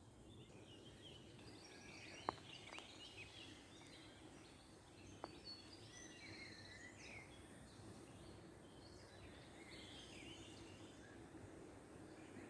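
Faint chirping and twittering of several small songbirds over a low, steady background rush, with a few sharp clicks about two and five seconds in.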